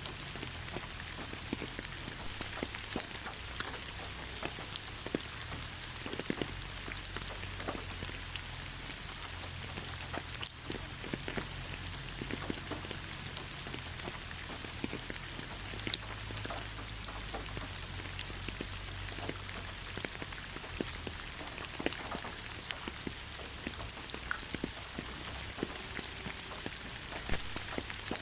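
Steady rainfall, with many single drops striking a surface as sharp little ticks over an even hiss. A low steady hum sits underneath.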